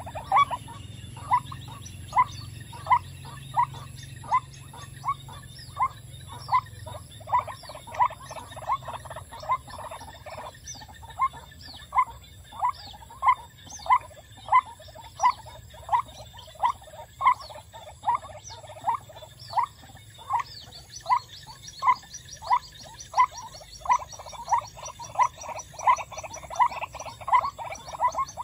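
White-breasted waterhen calling, one croaky 'kuk' note repeated very evenly about three times every two seconds without a break.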